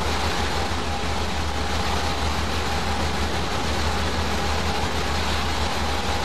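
Steady low rumble with a hiss and a faint constant high tone, unchanging and without breaks.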